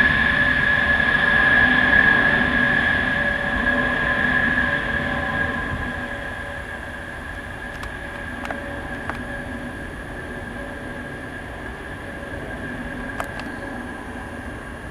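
Aircraft passing overhead: a loud, steady high-pitched engine whine that fades away over about six seconds, leaving a quieter steady rumble.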